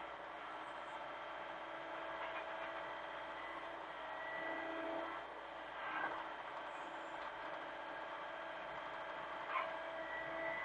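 Hitachi mini excavator running, a steady whining drone from its engine and hydraulics whose pitch shifts a little as it works, with a couple of short knocks.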